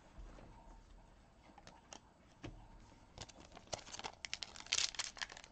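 Baseball card pack wrapper being torn open by hand: a few soft handling clicks, then from about three seconds in a run of sharp crinkling and tearing that grows louder.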